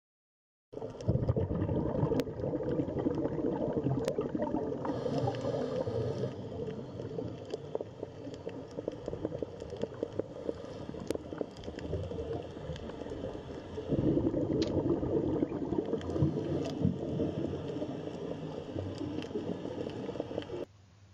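Underwater water sound, gurgling and bubbling with many small clicks. It starts about a second in, eases off partway through, swells again later and cuts off near the end.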